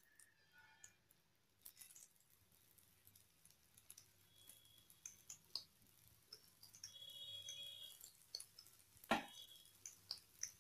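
Faint, sparse popping and crackling of hot oil as raw banana pieces are laid one by one on a cast-iron dosa tawa and begin to shallow-fry. A short faint tone comes about seven seconds in, and a sharper knock about nine seconds in.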